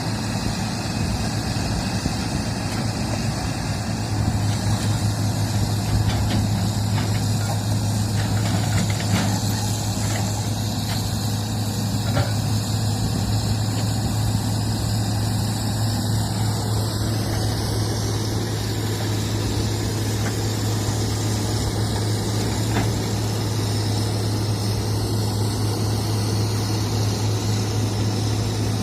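Heavy construction machine's engine running steadily, growing louder about four seconds in and then holding.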